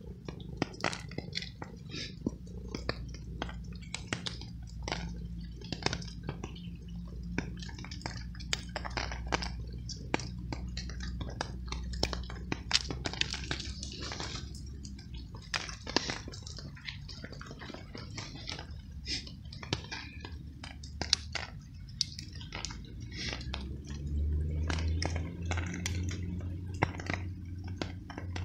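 Tabby stray cat chewing and crunching dry treats close up, a run of short irregular crunches, with rain dripping around. A steady low rumble runs underneath and grows louder near the end.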